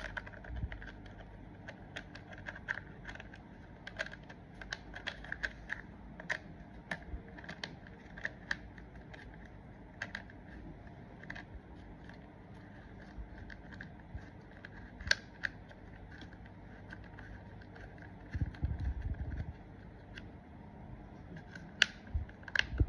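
Irregular small clicks and rattles from handling a Mellif 6-inch mini chainsaw with its motor off: the side-cover knob being turned and the chain and bar being shifted. A short low rumble comes late on.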